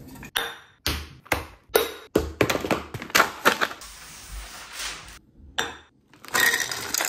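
Kitchen handling sounds: a string of sharp knocks and taps on a stone countertop, with a stretch of papery rustle and tearing about four seconds in as parchment paper is pulled from its roll.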